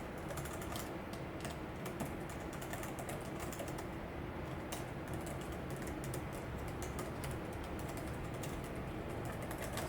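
Typing on a Logitech ERGO K860 ergonomic keyboard: a quick, uneven run of fairly quiet, soft keystroke clicks from its shallow-travel keys.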